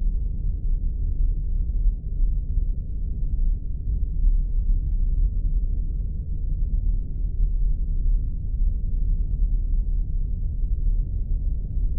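Spaceship ambience sound effect: a steady, deep rumbling drone.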